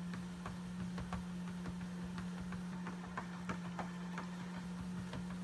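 Motorized treadmill running with a steady low motor hum, while a dog's paws and nails land on the moving belt in irregular clicking footfalls, a few each second.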